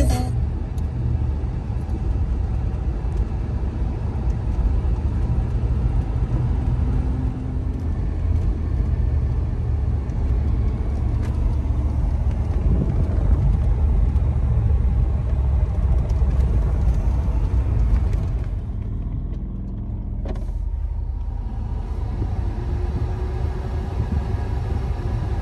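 Cabin noise of a 1992 Cadillac Brougham on the move: a steady low rumble of engine and road under tyre hiss. About three-quarters of the way through, the hiss drops away for a couple of seconds while the rumble carries on.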